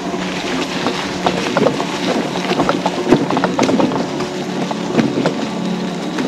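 Electric mobility scooter running along a trail: a steady motor hum with irregular clicks and knocks from rolling over bumps.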